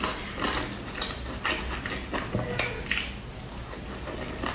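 Close-up mouth sounds of a person chewing steamed dumplings: an irregular run of short wet clicks and smacks.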